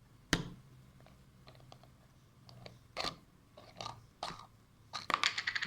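Slime being squeezed and poked, giving short crackling, squelching pops, with a quick run of pops near the end. There is a sharp click near the start.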